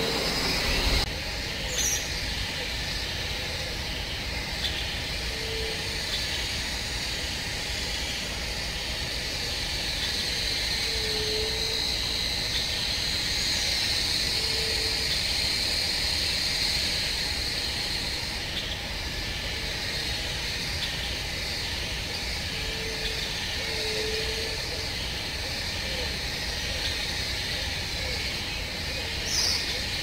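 Forest lagoon ambience: a steady high insect drone over a low rumble, with short low calls every few seconds and a brief high chirp about two seconds in and again near the end.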